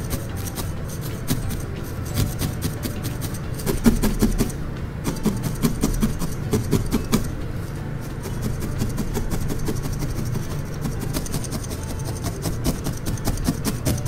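Felting needle stabbing quickly and repeatedly through wool into a bristle brush felting mat, a fast run of short crunchy pokes.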